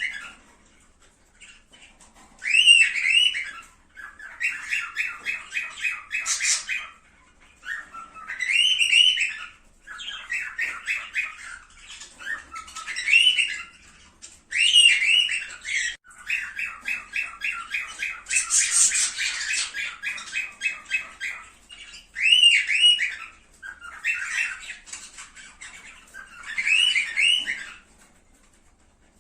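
Cockatiels calling: a string of short squawky calls and longer rapid chattering phrases, with brief pauses between bursts.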